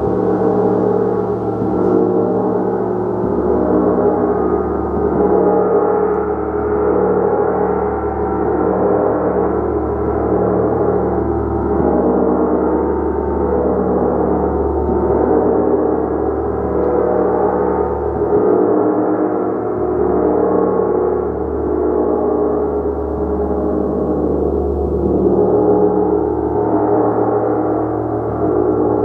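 Large hammered gong played continuously with a mallet: a dense, sustained wash of many overlapping tones that gently swells and ebbs every second or two.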